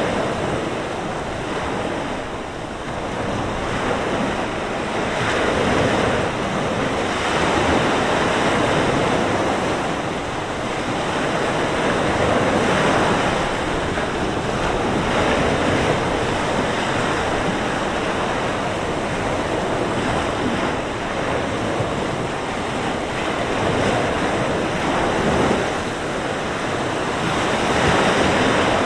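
Mediterranean surf: waves breaking and washing up the shore in a steady rush that surges and eases every few seconds, with wind blowing across the beach.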